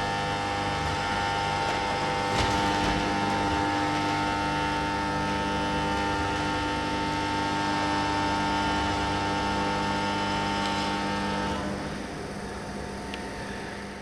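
A steady machine-like hum made of several held tones, with a brief click about two and a half seconds in. Near the end some of the tones drop out and the hum grows quieter.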